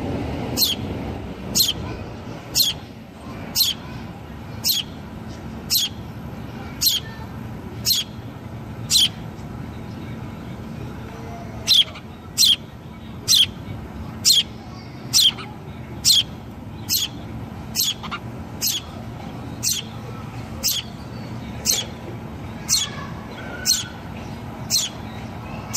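A sparrow chirping over and over, each chirp a short, sharp downward sweep, about once a second. The chirping pauses about ten seconds in, then picks up with a quicker run.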